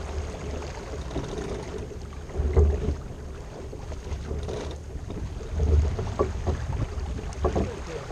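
Wind buffeting the microphone and water rushing along the hull of a J/105 sailboat under sail, in gusts. A few short knocks come in the second half.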